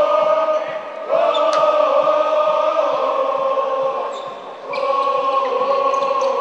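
A group of handball supporters chanting in unison, singing long held notes with short breaks between phrases, over a steady run of low thumps.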